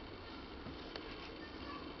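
Steady background hiss with a few faint soft taps and scuffs from a kitten pawing at a feather teaser on a blanket, one tap about a second in.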